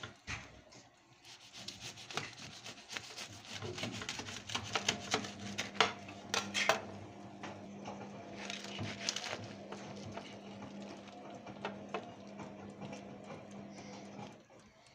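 Serrated bread knife sawing through a crisp, oven-baked lavash roll on a metal baking tray: quick runs of crackly, rasping strokes, with a few more scrapes just after the middle. A steady low hum runs underneath and stops shortly before the end.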